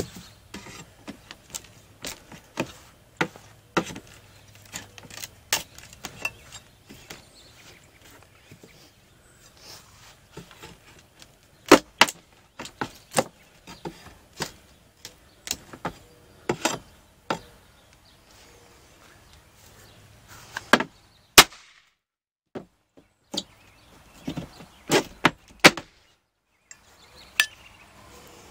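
Flat pry bar working old wooden corner trim loose: a long run of sharp, irregular knocks and taps, with a few louder strikes about twelve and twenty-one seconds in.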